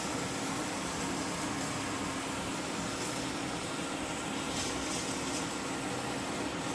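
Pressure cooker heating on an induction cooktop: a steady hiss with a low hum underneath.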